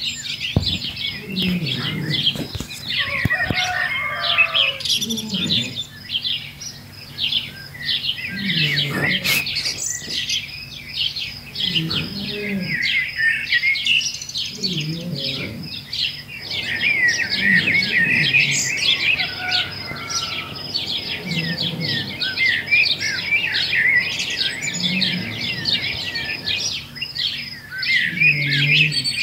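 A flock of small birds chirping and twittering continuously, many short high calls overlapping.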